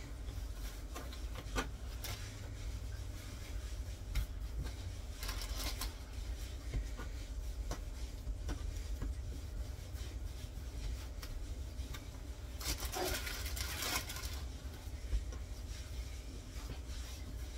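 Light handling noises: scattered taps and knocks with rubbing and scraping, and a longer rustling scrape about 13 seconds in, over a steady low hum.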